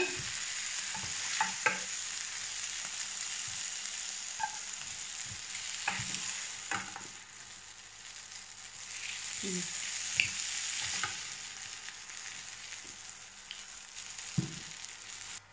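Shrimp sizzling in hot oil in a nonstick frying pan while a spatula scrapes and knocks against the pan, lifting them out. The sizzle dips about halfway through and swells again, with several short taps from the spatula.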